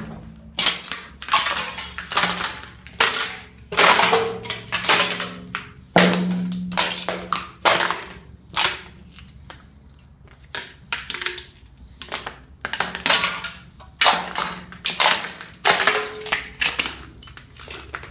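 Thin sheet ice being broken, a rapid irregular run of sharp cracks and crunches with shards clinking, about two a second, with a short lull around the middle.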